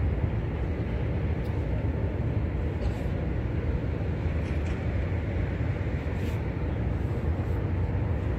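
Steady low rumble of wind buffeting a handheld phone's microphone outdoors, with a few faint ticks.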